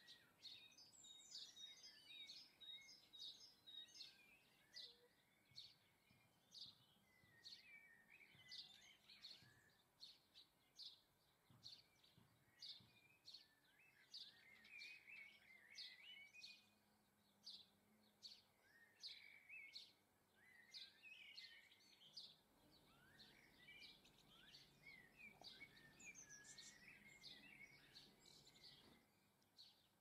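Faint garden birdsong: a steady run of short high chirps, one or two a second, with bouts of twittering.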